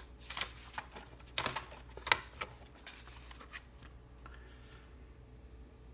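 A sheet of paper being handled and turned over on a desk: a quick series of short rustles and light taps, the loudest about two seconds in, dying away after about three and a half seconds.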